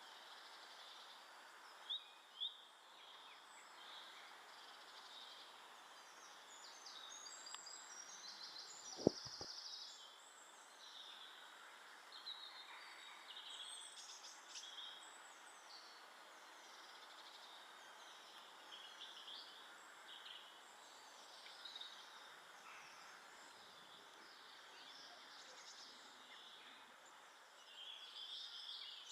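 Faint outdoor ambience of small garden birds chirping and calling, short high notes scattered throughout over a steady hiss. There are two soft knocks near the start and a sharper knock about nine seconds in.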